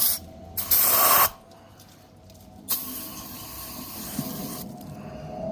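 Aerosol parts cleaner being sprayed in hissing bursts: a short, loud burst about a second in, then a longer, softer spray from about three seconds in.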